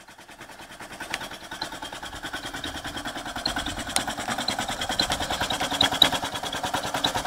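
Vintage air compressor running: a circa-1930 piston pump driven by a Crompton Parkinson electric motor, making a fast, even rhythmic chugging of pump strokes that grows louder over the first two seconds and then holds steady.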